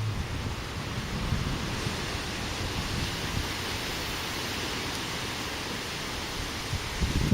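Gusty wind blowing, a steady rushing hiss with low rumbling buffets on the microphone that grow louder near the end.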